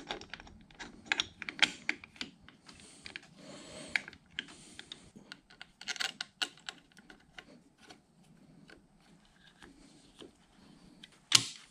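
Scattered light clicks and taps of small metal parts and a hand tool as a cover is fitted and screwed onto a milling machine's cast-iron quill housing, with a short scraping rub three to four seconds in.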